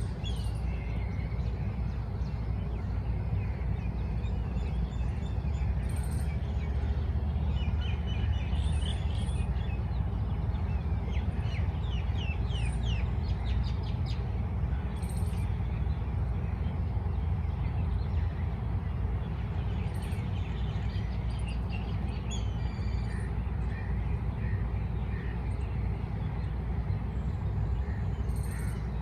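Small birds chirping and twittering, with a run of quick chirps in the middle, over a steady low rumble.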